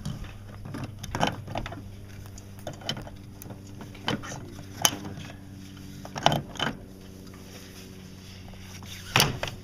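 Boat's swimming ladder being fitted into its brackets and spring clip: a scattered series of sharp clinks and knocks, the loudest about five, six and nine seconds in.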